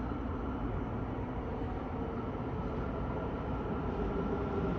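Subway train running in the tunnel behind full-height platform screen doors: a steady low rumble that grows slightly louder near the end.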